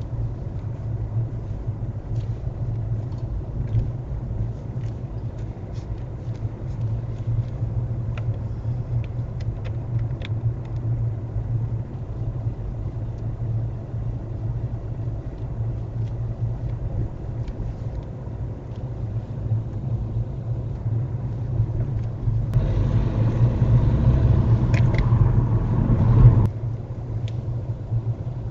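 A car's engine and road noise heard from inside the cabin, a steady low rumble while driving at walking pace. Near the end a louder rushing noise comes in for about four seconds and cuts off suddenly.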